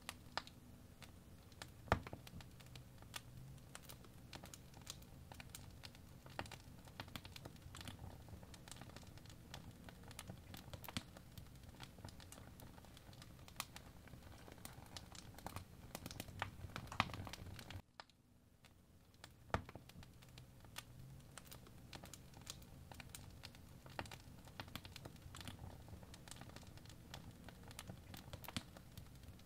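Apple Pencil tip tapping and stroking on an iPad Pro's glass screen: faint, irregular clicks and light scratches over a low steady hum, with a brief dropout about eighteen seconds in.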